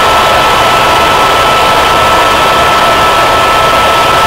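Helicopter cabin noise in flight: loud, steady engine and rotor noise with a constant high whine.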